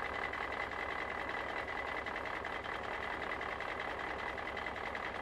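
Steady machine drone with a fast, even pulsing and a thin high tone, holding unchanged throughout.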